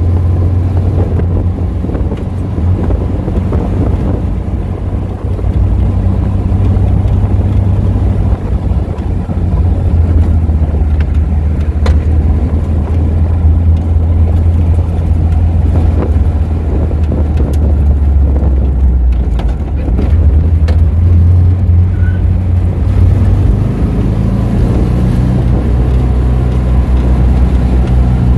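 Car engine running at a steady cruise with road and wind noise, heard from inside the cabin while driving. The engine note shifts near the end.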